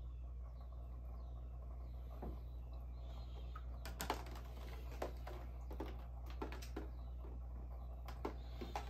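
A run of light, irregular clicks and taps, about a dozen, starting about two seconds in and loudest near the four-second mark, over a steady low hum.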